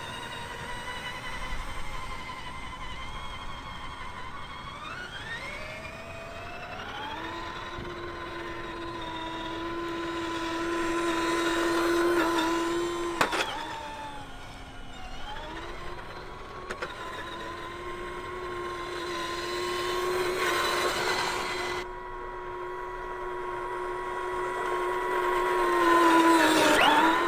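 Electric motor and drivetrain of a 1/10-scale RC4WD Desert Runner truck whining as it drives, rising in pitch as the throttle opens, then holding steady; the whine drops suddenly after a click about halfway through and climbs back, with noisy swells of tyres and movement near the middle and the end.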